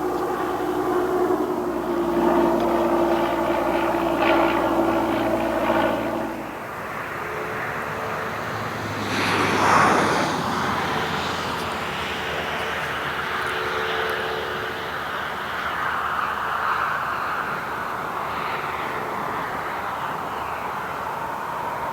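Radio-controlled model Cessna airplane in flight: its motor and propeller give a steady hum that shifts in pitch and level as the plane moves about, with a louder rushing pass about ten seconds in.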